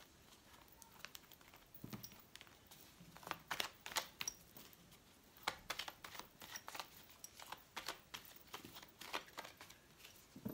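A deck of fortune-telling cards being shuffled by hand: faint, irregular flicking and sliding of cards against each other, with a scatter of light clicks.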